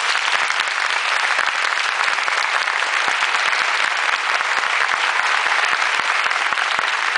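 Theatre audience applauding: dense, steady clapping from a large crowd.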